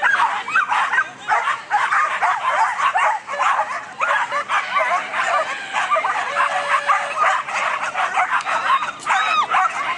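Several dogs barking and yelping without pause, with high, short, overlapping calls.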